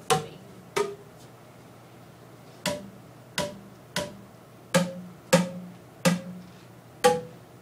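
Single notes struck one at a time on tuned percussion instruments, each player sounding their own pitch to pick out a simple melody. There are nine sharp, quickly fading notes at uneven spacing, with a pause of almost two seconds after the second.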